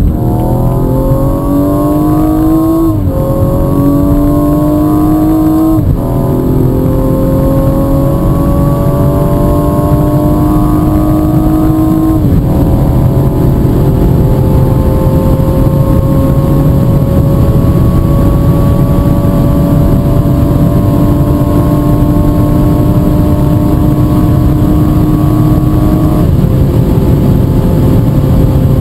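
A BMW M135i's turbocharged straight-six at full throttle, pulling up through its high gears. The engine note climbs steadily and drops sharply at each upshift: about 3, 6 and 12 seconds in, and once more a couple of seconds before the end. Each gear holds longer than the last.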